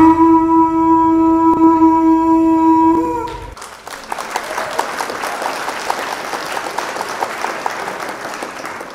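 A single loud horn blast held for about three seconds, bending up slightly as it ends, followed by a crowd applauding that slowly fades.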